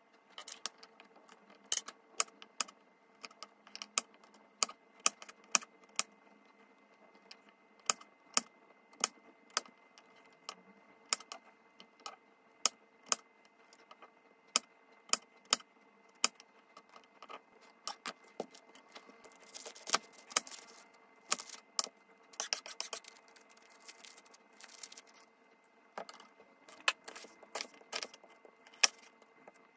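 Kitchen knife slicing garlic cloves and an onion on a plastic cutting board: sharp, irregular knocks of the blade on the board, about one or two a second. A stretch of quicker, crunchier cutting comes about two-thirds through.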